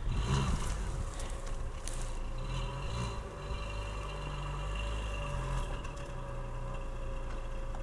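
Lada Niva 4x4 engine running under load as the car tries to drive up a snowy slope on let-down tyres and does not make it up, its revs rising and falling a little. A short scraping burst comes right at the start.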